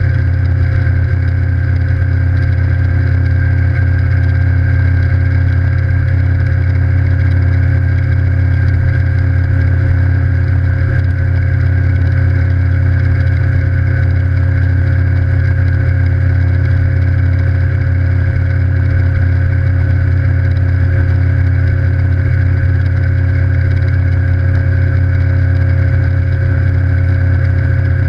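Evinrude E-TEC 150 H.O. two-stroke outboard running steadily at planing speed, a constant drone with no change in revs.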